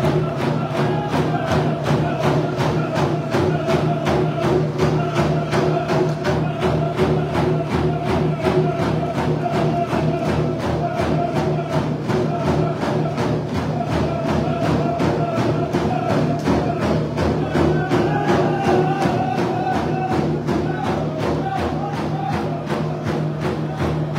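Hand game drum group beating hide frame drums in a fast, even beat while singing a chant together in unison.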